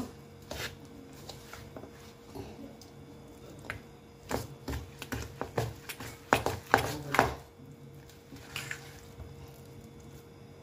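Steel spoon stirring and scraping a thick flour, semolina and milk batter in a stainless steel bowl: irregular scrapes and clicks of metal on metal, busiest about four to seven seconds in.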